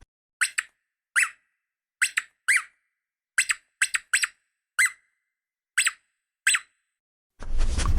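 A dog's short, high-pitched whimpers or yelps, about a dozen in irregular ones and twos, each dipping in pitch. Near the end, loud, rapid panting starts.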